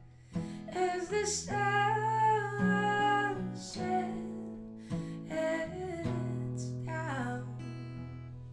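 Live music: a woman singing over guitar, her phrases held and wavering in pitch, with plucked guitar notes beneath.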